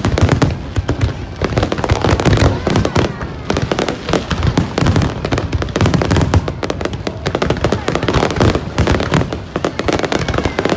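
Fireworks display going off: a continuous barrage of bangs and crackles from aerial shells, many bursts a second without a break.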